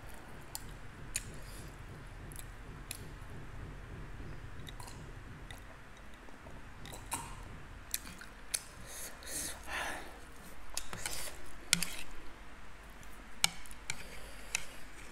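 A person chewing food close to the microphone, with scattered sharp mouth clicks and smacks and a few longer breathy sounds around the middle.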